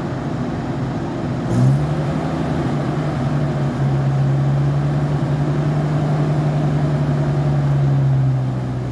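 A vehicle engine running steadily. About a second and a half in there is a click, and the engine picks up a little in speed, then holds an even note.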